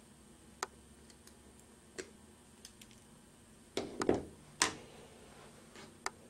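Scattered sharp clicks and taps of hard plastic enclosure parts being handled, with a louder cluster of knocks about four seconds in.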